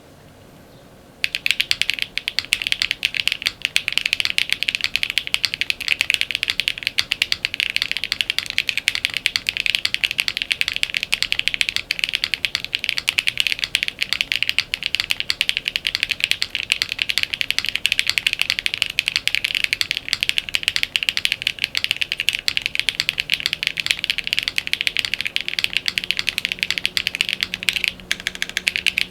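Typing on a gasket-mounted Space82 mechanical keyboard with an FR4 plate, HMX Emo switches and PBT keycaps: a fast, continuous stream of keystroke clicks that starts about a second in, with a brief pause near the end.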